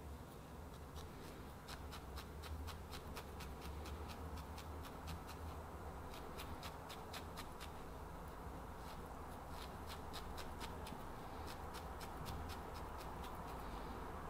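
Felting needle repeatedly stabbing through a ball of loose wool into a bristle felting brush: a faint, irregular run of soft ticks, often several a second, as the barbed needle tangles the loose fibres into a firmer ball.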